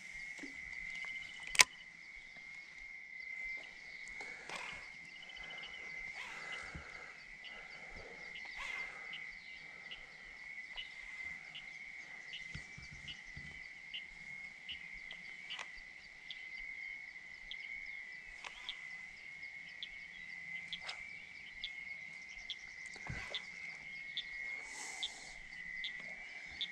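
Frogs calling: a steady high-pitched trill with short clicking calls repeating about once a second over it. One sharp knock about a second and a half in.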